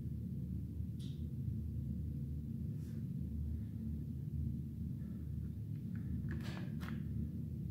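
Steady low electrical hum from the powered-up Aristomat 1310 machine, with single clicks about one and three seconds in. A quick cluster of clicks comes as the green push button that switches on the machine's drives is pressed.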